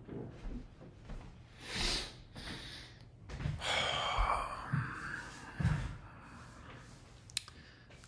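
A person coming back to the microphone and settling in: clothing rustling close up, with three dull thumps in the middle and a single sharp click near the end.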